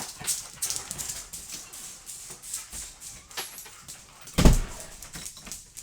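Coonhounds being let out and moving about: scuffling and clicking, with one heavy thump about four and a half seconds in.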